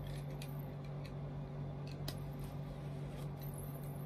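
A small cutting tool snipping and scratching at a box's wrapping, giving a few irregular light clicks over a steady low hum.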